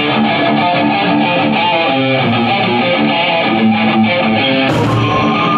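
A band playing rock music, led by electric guitar over bass, with a bright crash coming in a little under five seconds in.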